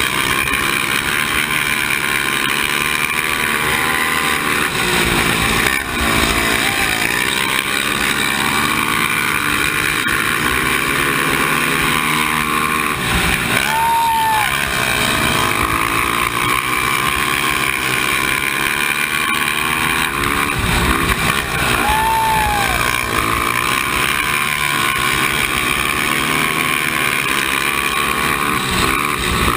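Honda TRX450 race quad's single-cylinder four-stroke engine under hard racing, its revs rising and falling over and over through the corners and straights of a dirt flat track, with other race quads running close by.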